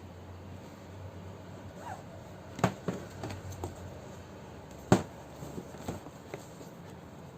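A series of sharp clicks and knocks, the loudest about five seconds in: a product box and its packaging being handled and opened during an unboxing.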